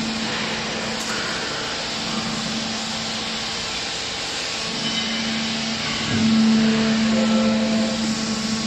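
Horizontal bagging baler running: a steady machine hum with a broad hiss, growing louder about six seconds in.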